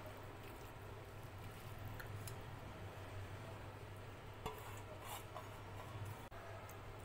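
Hand mixing rice and chicken curry on a steel plate, with faint squishes and clicks, then a steel bowl tipped over the plate, a sharp metal tap about four and a half seconds in and a brief spill of gravy onto the rice just after. A low steady hum runs underneath.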